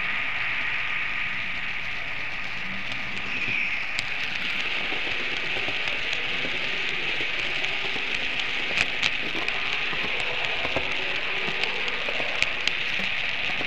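Märklin model train running along the layout's track, heard from on board: a steady whirring hiss with occasional sharp clicks.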